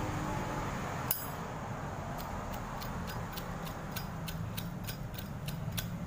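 Chrome Zippo lighter: a sharp metallic click of the lid about a second in, then the flint wheel struck over and over, about a dozen short scratchy strikes at three or four a second. The lighter is hard to light.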